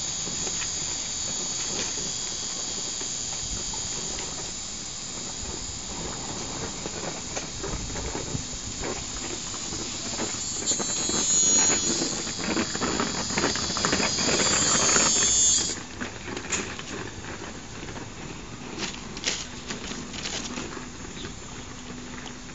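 Chorus of cicadas, a steady high-pitched drone that swells louder and then cuts off suddenly about two thirds of the way through. Beneath it, soft crackling and chewing as a goat bites and eats a sheet of paper.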